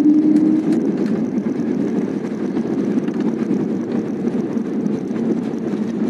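Jet airliner cabin noise during the landing rollout: a steady low rumble of the engines and the wheels on the runway. A faint humming tone fades out about a second in.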